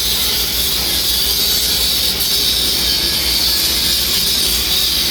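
Steady loud hiss over a low rumble, with no break or change.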